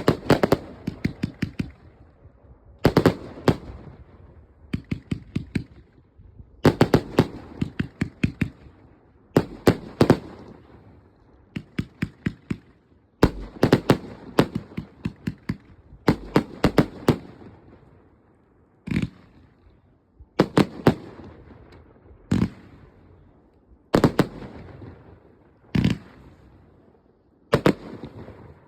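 Mind Flayer 58-shot firework cake firing. Quick clusters of sharp reports come every couple of seconds, with a few single bangs between them in the second half.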